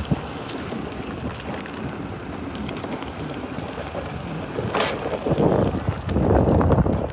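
Wind rushing over the microphone during a ride on an electric chopper scooter, a steady rushing noise that swells into louder gusts about five and a half seconds in. No motor whine stands out.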